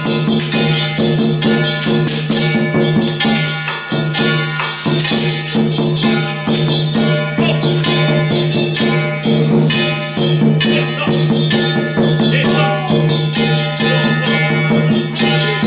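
Loud temple procession music: a steady droning tone held throughout, over fast, continuous cymbal and percussion strokes.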